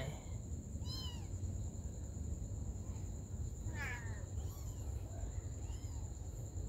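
A kitten mewing in short, high calls: one about a second in, a louder falling one near four seconds, and fainter ones after.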